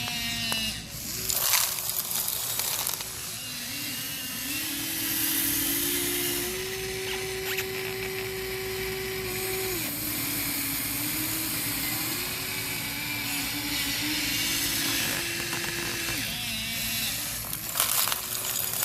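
Small electric motors of a Huina radio-controlled excavator whining, their pitch stepping up and down as the machine moves. There are short rattling noises about a second and a half in and again near the end.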